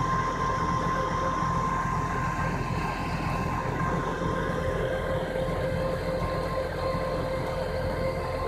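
Heavy wrecker tow truck's engine running steadily, with a steady high-pitched whine over it.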